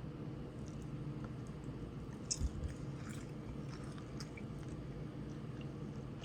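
Close-up chewing and biting of crunchy food, with scattered crackly crunches, the loudest about two and a half seconds in, over a steady low hum.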